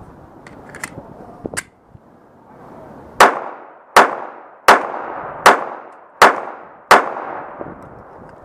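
Glock 42 .380 ACP pocket pistol firing six shots in a steady string, about one every 0.7 seconds, each a sharp report with a short ringing tail. A few light clicks come in the first two seconds, before the shooting starts.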